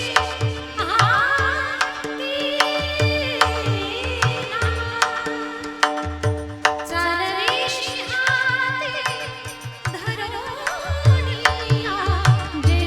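A woman singing a devotional Marathi kirtan abhang in long, ornamented held notes. Under the voice run a steady drone note, regular hand-drum strokes and a rhythmic beat of small cymbal clicks.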